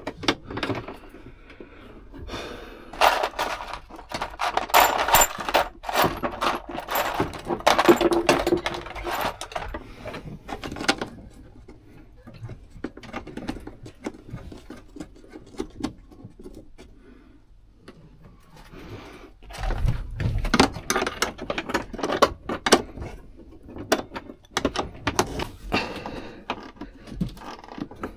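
Irregular clattering, knocking and scraping of parts and tools being handled, in two busy stretches with a lull between; a few dull thuds come about two-thirds of the way through.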